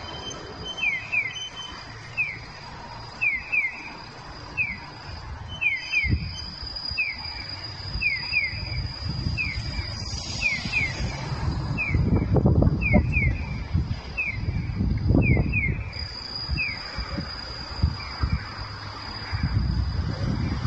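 Japanese audible pedestrian crossing signal (Nisshin No. 1015 sound unit) playing its 'piyo-piyo' bird-call tone: quick falling electronic chirps in pairs and singles, about one a second, the cue that the pedestrian light is green. Cars pass through the junction, loudest in the second half, and the chirps turn faint about three-quarters of the way through.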